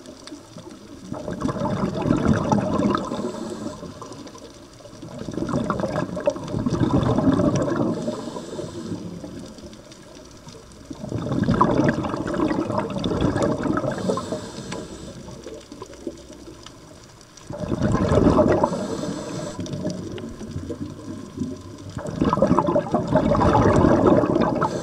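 A scuba diver's regulator exhaust underwater: a gurgling rush of exhaled bubbles about every five to six seconds, five breaths in all, with quieter gaps between.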